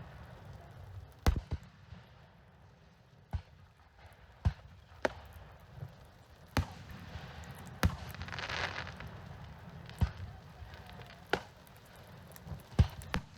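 Fireworks going off: about ten sharp bangs of aerial shells at irregular intervals, with a brief hissing crackle about two-thirds of the way through.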